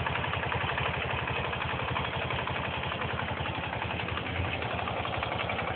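1983 BMW R45's air-cooled flat-twin (boxer) engine idling steadily, with an even beat of firing pulses.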